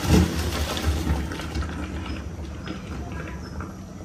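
A cloth scrubbing the inside of a blackened wok in a sink, with scraping and rubbing that eases off in the second half.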